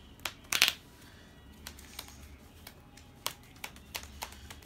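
Sleeved trading cards being laid down and tapped onto a playmat: a loud double tap about half a second in, then a series of lighter clicks.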